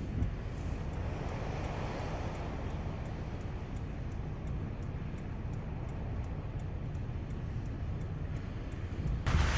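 Steady road noise inside a moving car: engine and tyre rumble with a constant hiss. A louder, brighter noise cuts in suddenly near the end.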